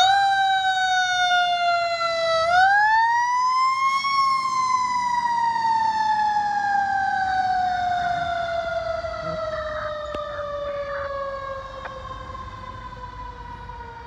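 Federal Q2B mechanical siren on a fire engine, its pitch sagging, then winding back up about two and a half seconds in and after that slowly winding down. It fades as the truck moves away.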